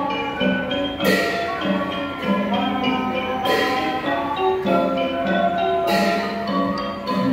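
Thai piphat mon ensemble playing Mon dance music: a xylophone and gong-circle melody over drums, with a bright clash about every two and a half seconds, three times.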